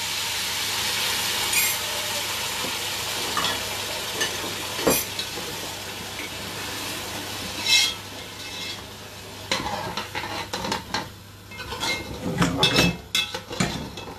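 Chicken stock poured into a hot pot of rice hisses and sizzles, dying down after about eight seconds. Then a spoon scrapes and clanks against the metal pot in quick knocks as the rice is stirred.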